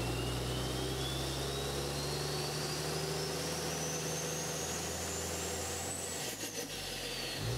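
Engine sound with a steady low drone and a high whistle that rises evenly for about six seconds, then turns and falls away, with a few clicks as it turns.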